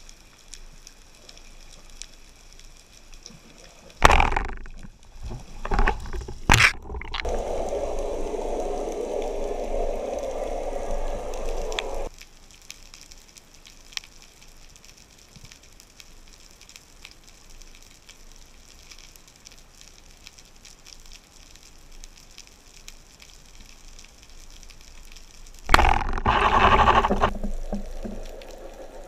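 Underwater sound from a spearfisher's camera: mostly a low hiss with faint ticks. There is a sudden loud burst about four seconds in, a steady hum from about seven to twelve seconds, and a loud noisy gurgling stretch near the end as the diver reaches the surface.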